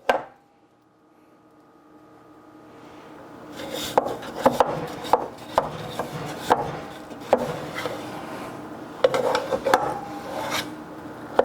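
A spoon scraping freshly churned soft ice cream out of an ice cream maker's bowl, over a steady hum. From about four seconds in there are repeated sharp knocks of the spoon against the bowl.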